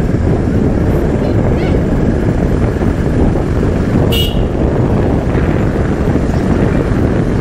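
Bajaj Pulsar 220F motorcycle being ridden, its engine and wind rush on the on-bike camera microphone making a steady, loud noise. A short horn beep sounds about four seconds in.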